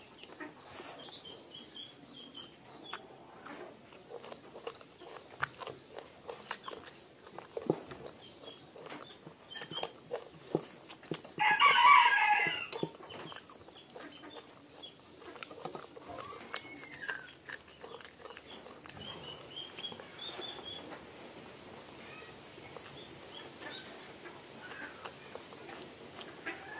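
Close-up eating sounds: a hand squishing rice and pork curry, with chewing and lip smacking. About eleven seconds in, a rooster crows once for about a second and a half, the loudest sound here. Faint high chirping repeats in the background.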